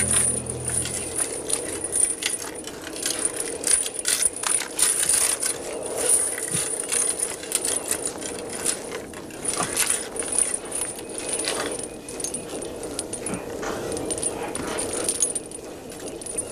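Heavy iron chains clinking and jangling irregularly as chained prisoners are moved about.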